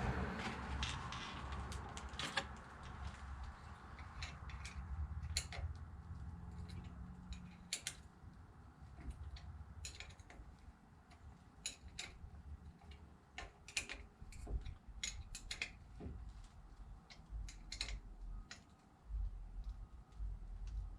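Irregular metallic clicks and clinks of hand tools working on a brake caliper's bolts and hardware, over a low background rumble that fades after the first few seconds.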